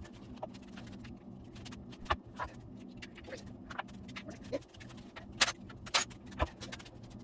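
Irregular metallic clinks and knocks of hand tools and loose engine parts being handled during an engine teardown, with a few sharper knocks in the second half.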